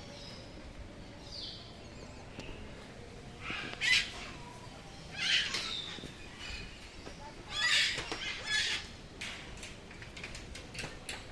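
Birds calling in a few short, loud bursts, several seconds apart.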